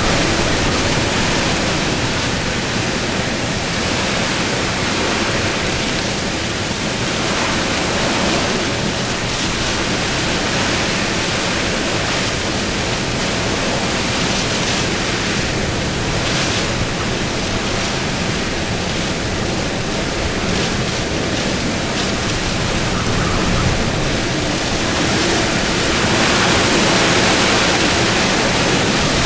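Hurricane-force wind of Ida's back eyewall blowing loud and steady, a dense rushing noise that swells in gusts and grows louder near the end.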